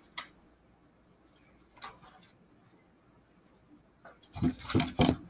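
Hands rummaging for a crayon: a single click at the start, then a few dull knocks and rustles of objects being handled a little after four seconds in.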